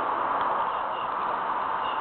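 Steady outdoor background hiss with a faint, short high chirp repeating about once a second.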